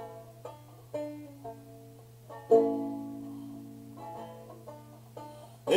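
Banjo picked slowly in an instrumental passage, single notes and chords ringing and fading between strokes, the strongest stroke about halfway through. A faint steady low hum sits underneath.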